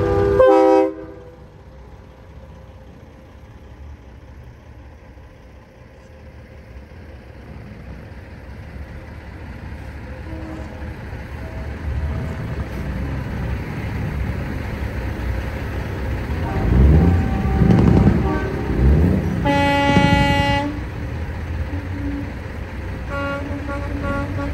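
Big-rig truck going by with its diesel engine rumbling and swelling, then a long air-horn blast about twenty seconds in and a few short horn toots near the end. A horn blast also cuts off just at the start.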